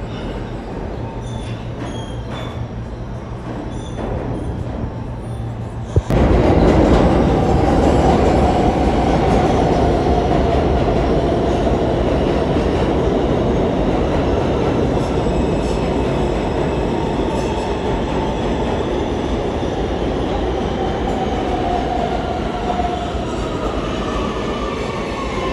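R160 New York City subway train running through the station: a loud rumble and rattle of wheels on rails, with wheel squeal and a slowly falling tone. The sound comes in abruptly about six seconds in, after a quieter stretch of train noise.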